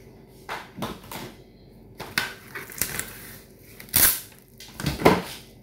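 Irregular crisp crackles and crunches, loudest about four and five seconds in, as fresh lettuce leaves are handled.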